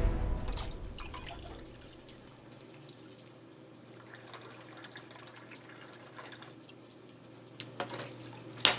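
Kitchen faucet running as a bowl is rinsed under it in a stainless steel sink: a faint, steady trickle of water. A few sharp clinks near the end.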